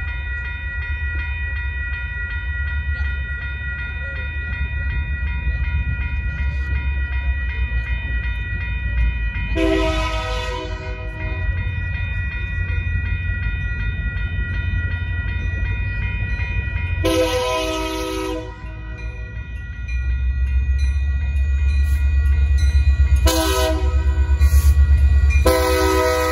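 An approaching Union Pacific SD70M diesel locomotive sounds its horn in the grade-crossing pattern: a long blast, a second long blast, a short one, then a long one beginning near the end. Under the horn a crossing warning bell rings steadily, and a low diesel rumble grows louder as the locomotive arrives.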